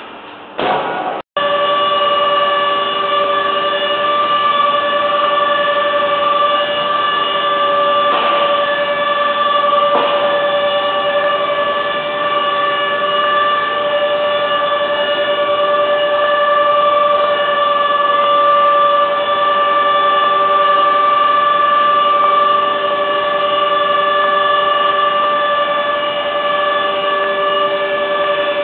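Woodworking machinery running with a steady high-pitched whine, one tone with several overtones. The sound breaks off sharply for an instant about a second in.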